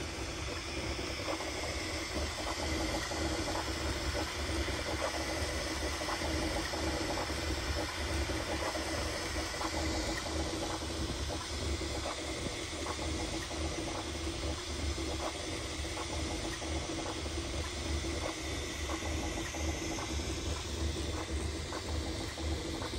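Bambu Lab A1 3D printer running a print: a steady whirring hum with a low rumble and many quick faint ticks as its motors move the print head and bed.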